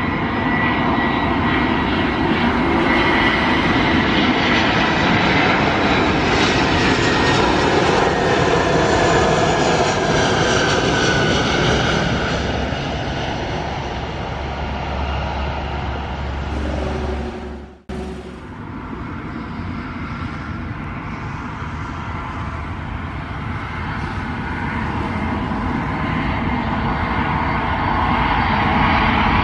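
Airbus A321 jet engines running on final approach, a steady noise with a high whine that slowly drops in pitch. The sound breaks off abruptly about two-thirds of the way through. Then the engines of a second airliner, a Boeing 757-200, are heard on approach, growing louder near the end.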